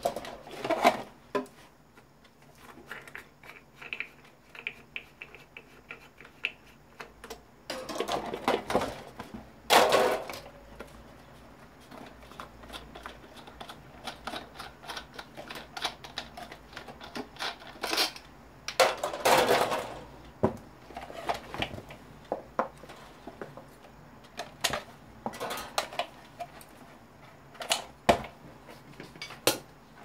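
Plastic parts of an old electric fan clicking, clattering and knocking as the fan is taken apart by hand. The sounds come in irregular bursts, the loudest clatters about ten and nineteen seconds in.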